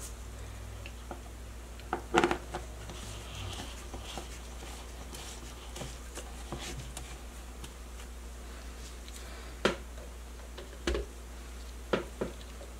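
Handling of a personal bullet-style blender's plastic cup: a few light knocks and clicks as the filled cup is lidded and set upside down onto the motor base, the loudest about two seconds in, over a low steady hum. The blender motor is not running.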